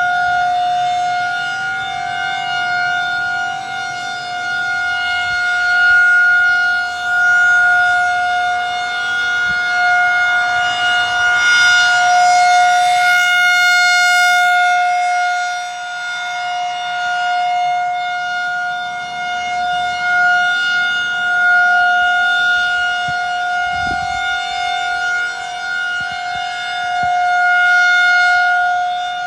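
Federal Signal 2001 SRN/DC electromechanical warning siren sounding the Full Alert signal: one steady, unchanging pitch. Its loudness swells and fades every few seconds as the rotating siren head turns toward and away from the listener.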